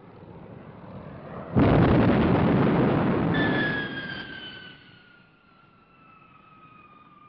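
Gloster Meteor jet fighter passing. A sudden loud rush of jet noise comes in about a second and a half in and holds for a couple of seconds, then a high engine whine slides slowly down in pitch as the noise fades away.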